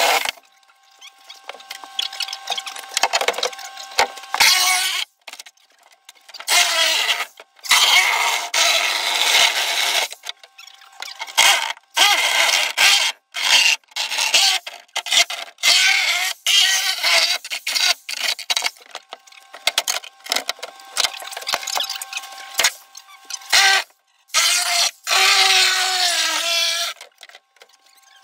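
Handheld power saw cutting into a fiberglass shower surround in short bursts, starting and stopping many times, its motor pitch falling as it winds down near the end.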